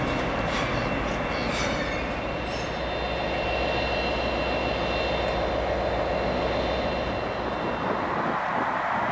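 Diesel locomotive running steadily as it hauls its coaches on the move, with a thin high-pitched wheel squeal over the first few seconds and a few light clicks early on.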